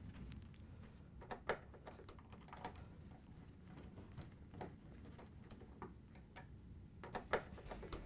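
Faint, scattered metal clicks and ticks of a 3/8-inch nut driver seating on and turning hex-head screws into a refrigerator door's steel top hinge, with two sharper clicks close together near the end.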